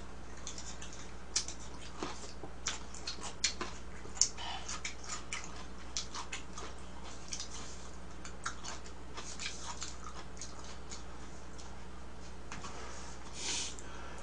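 Eating sounds from a bowl of mung bean porridge: a spoon clicking and scraping against the plastic tub, with mouth smacks and chewing. There is a longer slurp near the end as the spoon goes to the mouth.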